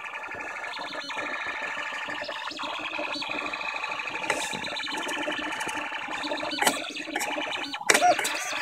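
Stepper motors of a LulzBot Taz-based 3D printer whining in shifting tones as the print head moves through a print. A couple of sharp clicks come near the end.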